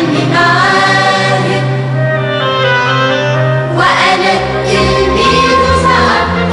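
Choir singing an Arabic anthem over musical accompaniment with steady held bass notes.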